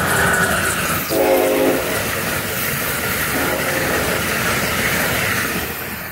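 Amtrak passenger train behind an electric locomotive passing at speed, a loud rush of wheels on rail and wind that fades near the end. The locomotive's horn gives a short blast about a second in and a fainter note a couple of seconds later.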